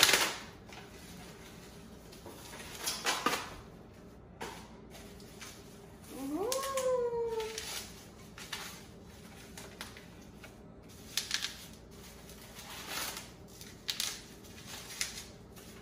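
A cat meows once, a single call rising and then falling, about six seconds in. Around it come scattered knocks and plastic rustling as a wrapped office-chair base is handled.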